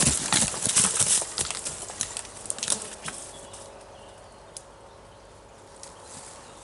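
Irregular rustling and crunching, as of footsteps through dry leaves and undergrowth, busy and loud for the first three seconds, then dying down to a faint rustle with an odd tick.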